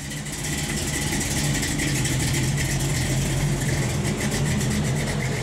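An engine running steadily at idle. It starts abruptly, builds over the first second and then holds level.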